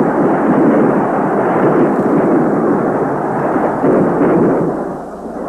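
Noise of a large stadium crowd, a dense, steady roar that is dull with little treble, easing slightly near the end.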